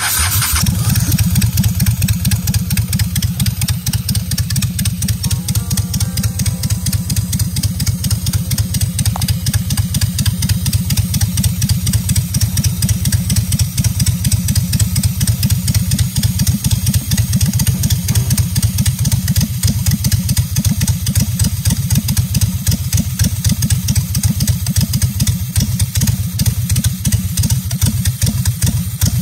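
Honda Shadow Ace V-twin engine, fed by a single-carburetor conversion with new main and idle jets, running steadily with an even rapid firing pulse. The air-fuel gauge shows it still running lean.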